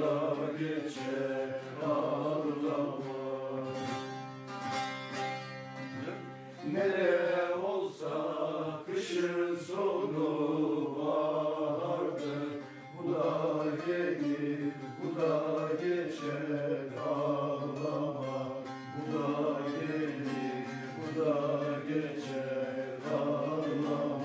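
Several bağlamas (long-necked Turkish saz) played together in an instrumental Turkish folk tune, a wavering melody over a steady drone.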